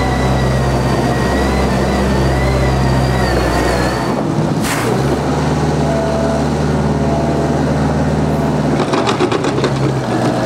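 Diesel engine of a compact farm wheel loader running steadily, with a thin high whine over the first few seconds. About four seconds in the sound cuts to a second steady engine drone, with a few clicks near the end.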